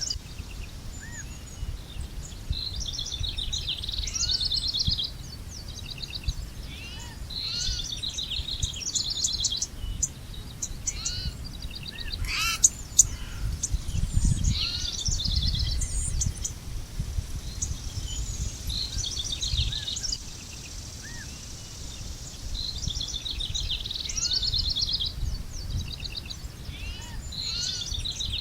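Songbirds singing, with short trilled song phrases recurring every few seconds and softer single arched call notes between them, over a steady low rumble. A single sharp click about thirteen seconds in.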